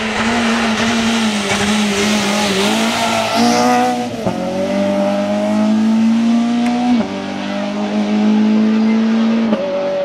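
Citroën C2 rally car's four-cylinder engine at high revs as it passes and pulls away. The pitch climbs and then drops sharply at each upshift: about four seconds in, about seven seconds in, and near the end.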